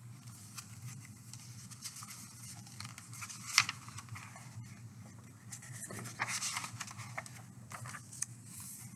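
Pages of a hardcover picture book being handled and turned: paper rustling, with a sharp tap about three and a half seconds in and a cluster of rustles a little past halfway, over a low steady hum.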